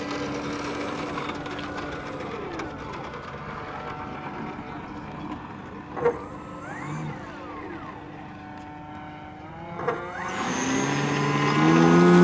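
Engine of a radio-controlled high-wing model airplane in flight, its pitch sliding up and down as the plane passes and turns. Two short sharp knocks come about six and ten seconds in, and near the end the engine grows louder and rises in pitch as the plane comes in close.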